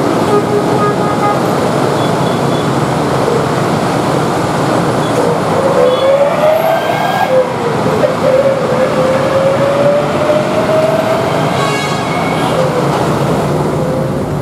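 Electric commuter train, an ex-JR 205 series unit, running slowly on the track with a steady rumble, and a whine that climbs in pitch, dips and climbs again in the middle as it moves. A brief clatter comes near the end.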